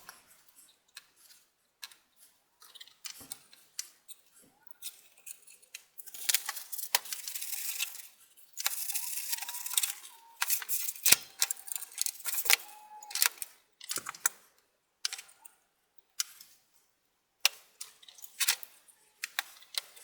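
Cotton swabs wet with isopropyl alcohol scrubbing dust out of a desktop computer power supply, with scattered sharp clicks and taps of plastic and metal parts being handled. Two longer stretches of scrubbing hiss come about six and nine seconds in.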